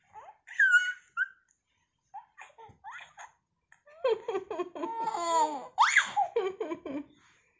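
Baby laughing: a short high squeal at the start, a few brief giggles, then a long run of rapid laughs from about four seconds in, with a high shriek near the end.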